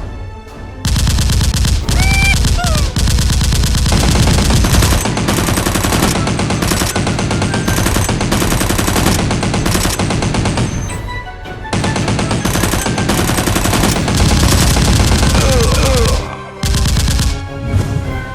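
Automatic gunfire sound effects: long stretches of rapid machine-gun fire, with short pauses about 11 seconds and 16 seconds in.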